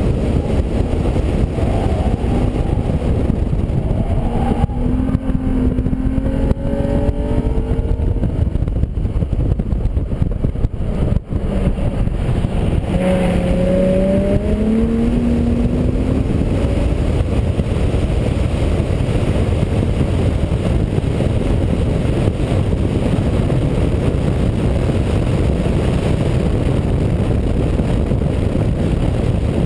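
2004 Infiniti G35 coupe's 3.5-litre V6 running hard under track driving, heard from inside the cabin over a dense roar of wind and road noise. The engine note rises and falls a few seconds in, and climbs again about 13 seconds in as the car comes through a corner.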